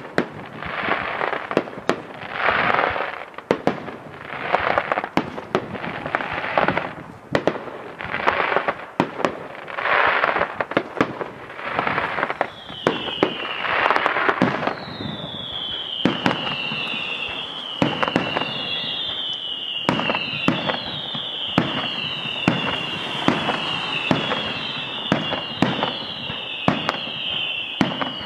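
Daytime fireworks display: sharp bangs with a crackling burst every second or two, then from about halfway a string of overlapping falling whistles, about one a second, with sharp bangs among them.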